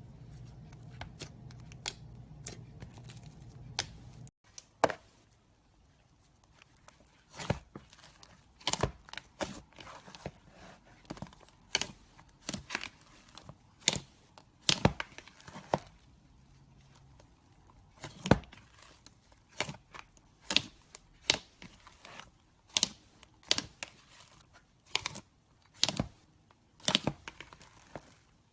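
Slime being squeezed and poked, giving irregular sharp clicks and pops a few times a second. A low hum underneath stops abruptly about four seconds in.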